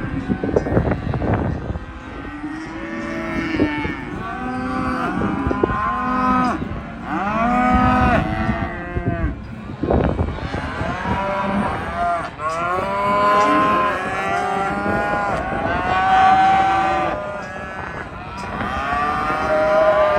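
A pen of cattle mooing and bellowing, many calls overlapping and following one another, each call rising and then falling in pitch. A few knocks sound in the first couple of seconds and again about halfway through.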